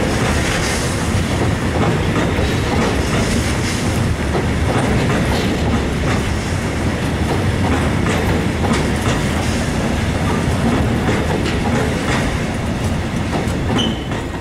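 Freight train of tank wagons rolling past, a steady rumble with wheels clicking over rail joints. The last wagon clears near the end.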